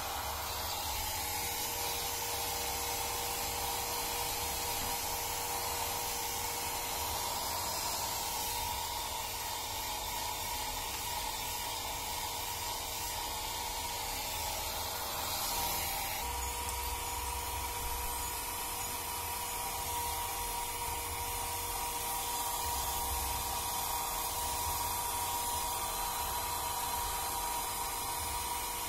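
Small handheld hair dryer running steadily while blowing a kitten's fur dry: a constant rush of air with a steady motor whine, which breaks off briefly about halfway through and then comes back.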